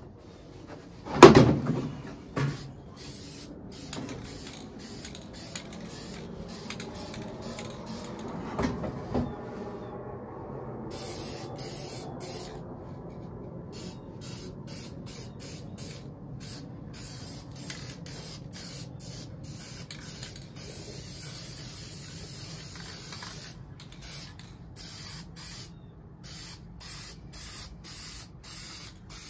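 Aerosol can of gloss black spray paint hissing in many short bursts, with a few longer sprays of a second or more. A loud knock sounds about a second in.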